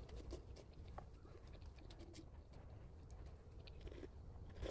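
Faint low cooing of a dove in the background, a few short coos, with soft clicking mouth sounds of someone eating.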